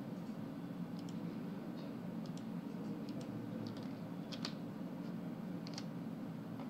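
Light, irregular clicks of typing on a keyboard, a handful of taps at uneven moments, over a steady low hum.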